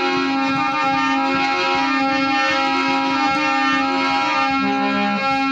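Instrumental music: a keyboard-like instrument plays a slow melody of long held notes over a steady drone, with no voice.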